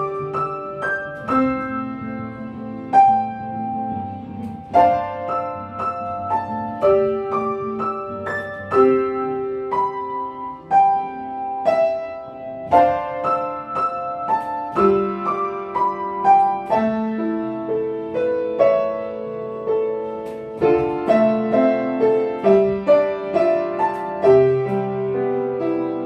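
Solo piano playing a melody over lower accompanying notes, with a new note struck roughly every half second.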